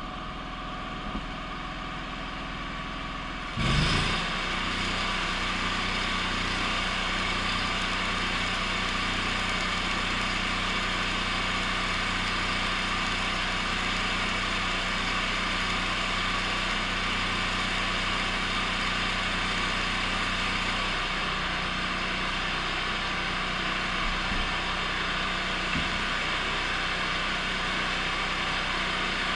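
Stick welding with a 6010 electrode: the arc strikes about four seconds in and then crackles and hisses steadily as the bead is run. A steady low machine drone from the welding setup runs underneath.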